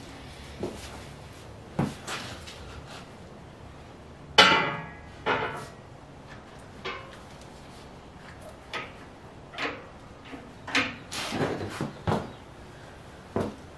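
Steel tube clanking and knocking against a steel trailer frame as it is set down and shifted into place: scattered knocks, the loudest about four seconds in with a brief metallic ring.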